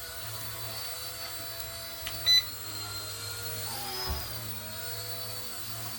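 Small electric RC helicopter (Twister Ninja 250) in flight, its motor and rotors giving a steady high whine. About two seconds in there is a short, loud electronic beep. Around four seconds in the whine briefly rises and falls in pitch, with a low thump.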